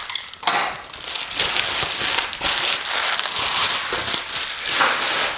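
Plastic packaging crinkling and rustling continuously as a pair of cut-resistant gloves is handled and pulled out of its bag.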